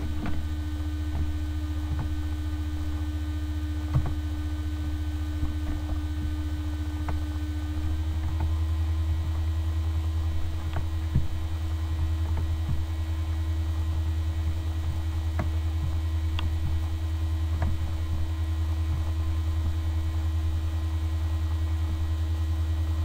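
Steady electrical mains hum from the recording setup, with a steady higher tone above it. A few faint short clicks are scattered through it.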